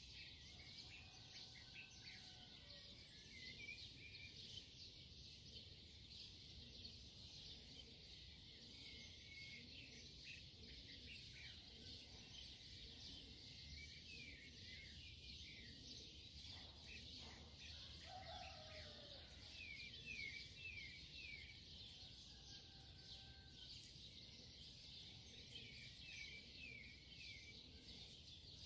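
Faint birds chirping in the background, with repeated quick falling notes in short runs, over a steady hiss.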